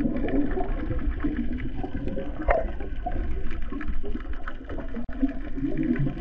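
Muffled underwater rushing and gurgling of water and bubbles, churned by a freediver's long fins kicking, heard through an underwater camera.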